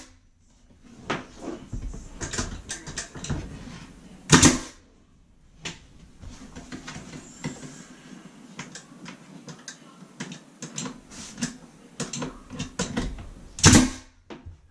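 Pneumatic nail gun firing twice, about nine seconds apart, nailing wainscoting trim to the wall, with softer taps and knocks between the shots.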